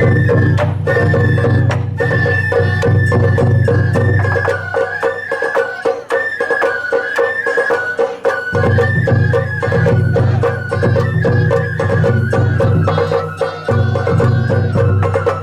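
Sawara bayashi festival music: a bamboo flute carries a stepping melody over rapid, steady taiko drum strokes.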